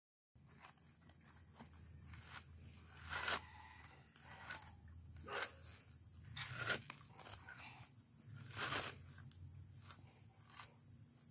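Dry, fibrous coconut husk being torn apart by hand, a handful of short ripping and rustling pulls, the loudest about every two seconds, over a steady faint high-pitched hum.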